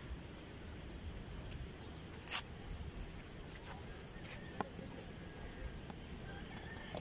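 Faint open-air background at a cricket ground: a steady low rumble with a few faint, scattered clicks and distant voices.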